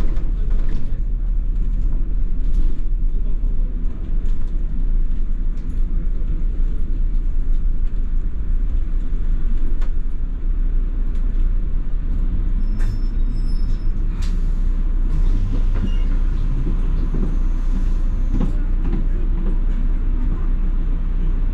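London double-decker bus running, heard from inside the passenger cabin: a steady low engine and road rumble with scattered rattles and clicks.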